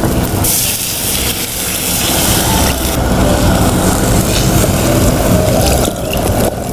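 Water poured from a brass jug into a hot clay cooking pot, a steady hiss that stops about six seconds in.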